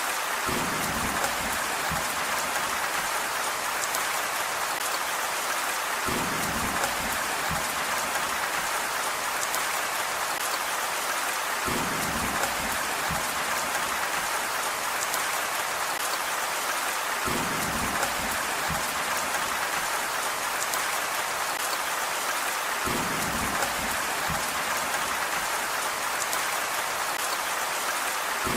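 Steady rain falling, an even hiss of drops, with a short low rumble coming back about every five to six seconds.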